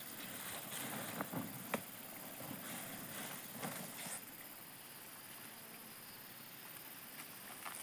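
Rustling and crackling of a large broad leaf and dry grass being handled, with a few sharp clicks in the first two seconds; quieter after about four seconds.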